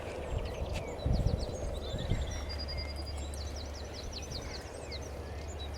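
Songbirds singing in the dawn chorus: quick series of high chirps and fast trills, with a short held whistle partway through, over a steady low rumble. A couple of soft low thumps about a second in.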